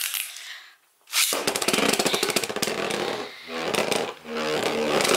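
Beyblade Burst top (Ace Dragon in its defense mode, on its flat Charge driver) launched into a plastic stadium about a second in, then spinning across the stadium floor with a dense rapid rattle. A whirring hum comes through near the end.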